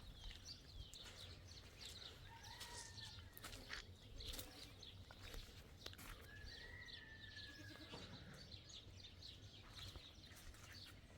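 Faint rural ambience: birds chirping, with two drawn-out animal or bird calls, the longer one about six and a half seconds in.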